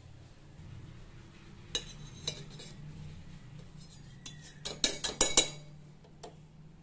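Small stainless-steel tea strainer clinking and scraping against steel pots while skimming milk solids off chilled milk: two light clinks, then a quick run of sharper taps about five seconds in.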